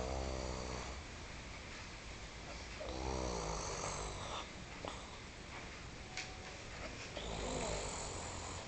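An elderly woman snoring in her sleep: three long snores, one about every four seconds.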